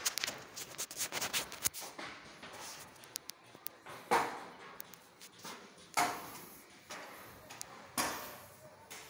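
Scattered sharp clicks and knocks echoing in a bare, unfurnished room: a quick run of clicks at first, then three louder thumps about two seconds apart.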